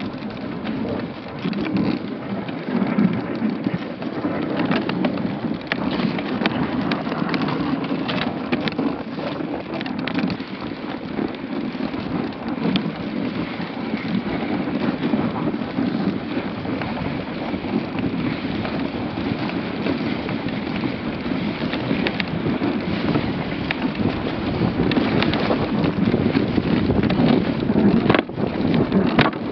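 Dogsled runners running over snow: a continuous rumbling rush with scattered knocks and rattles from the moving sled.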